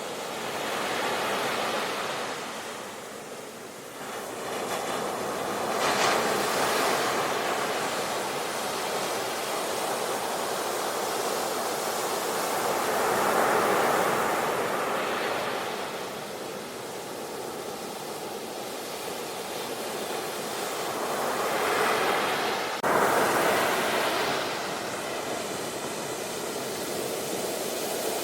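Sea surf washing on a shore, the noise of the waves swelling and easing in several surges, with a sudden jump in loudness about 23 seconds in.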